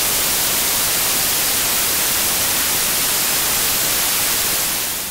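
Loud, steady static hiss like an untuned analog television, fading out near the end.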